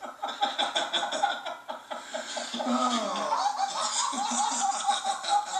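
Men laughing hard and uncontrollably in quick repeated bursts, with a strained, gliding voice about halfway through.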